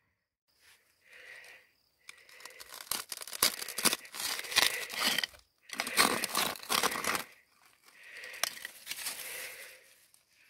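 A hand-held steel digging rod scraping and prying into crumbly quartz-vein rock, with grating and loose stones rattling. There are two loud spells of scraping, one from about two seconds in and one from about six seconds in, then softer scraping near the end.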